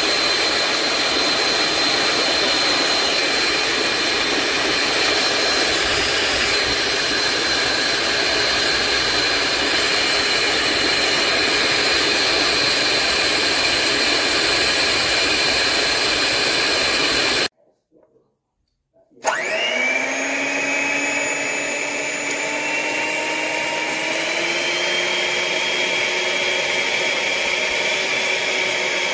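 LILPARTNER 450 W electric hand mixer running, its beaters whisking in a bowl: a steady, loud motor whine with a high tone over it. It stops briefly past the middle, then starts again suddenly, and its pitch slowly climbs.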